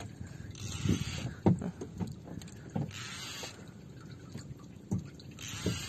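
Water washing and slapping against the hull of a small outrigger boat, in surges about every two and a half seconds, with dull knocks in between.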